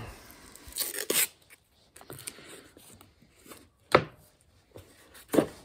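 A roll of green tape being handled and a strip pulled off and pressed along the edge of a cedar board, with a few short, sharp crackles and taps, the loudest about four seconds in.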